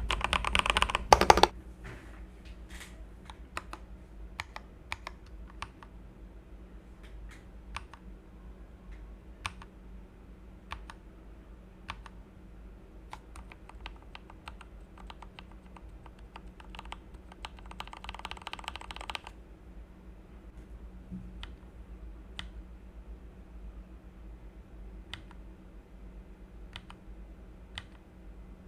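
Typing on a budget 60% barebone mechanical keyboard kit fitted with mixed switches and black-and-white keycaps, a test of its stock sound. A fast, loud flurry of keystrokes in the first second and a half, then slower, scattered single key presses, with another short fast run of keys a little past halfway.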